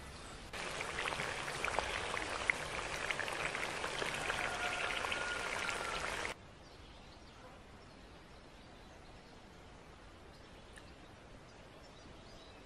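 Goose pieces cooking in their juices in a pot, a steady crackling sizzle with many small pops that starts and stops abruptly about six seconds in. After that only a faint outdoor background.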